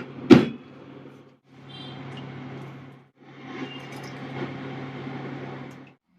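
Microwave oven running with a steady electrical hum and fan noise, with one sharp clack about a third of a second in. The hum cuts out briefly twice and stops just before the end.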